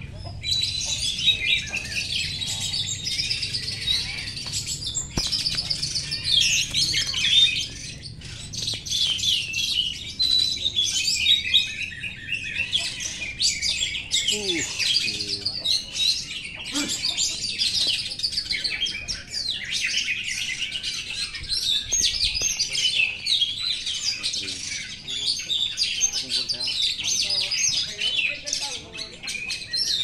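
Several caged oriental magpie-robins (kacer) singing at once: a dense, unbroken tangle of varied whistles and chirps.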